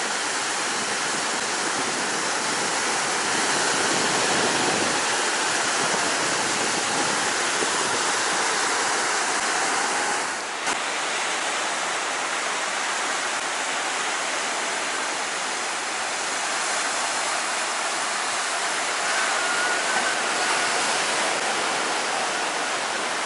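Heavy storm surf breaking on a sand beach: a steady, loud roar of waves. There is a brief dip and click about ten seconds in.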